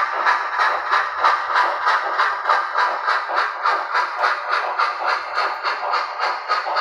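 DCC sound decoder in an HO scale brass Erie steam locomotive playing a steady steam exhaust chuff, about four beats a second, through the model's small speaker. The freight cars' wheels rolling on the track are heard with it.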